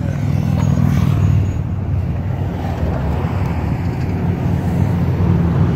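Steady low rumble of highway traffic, with vehicles including a motorcycle procession running on the interstate below.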